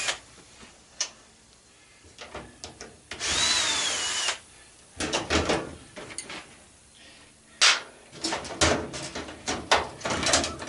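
Power drill backing out Phillips screws from a washing machine cabinet: one run of about a second, a few seconds in, its whine rising then dropping. After it come a series of knocks and clanks of metal parts being handled, thickest near the end.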